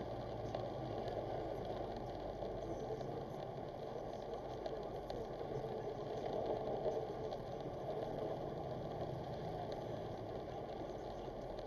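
Steady engine and road noise of a car driving on a rain-soaked road, heard from inside the cabin, with tyres running through surface water.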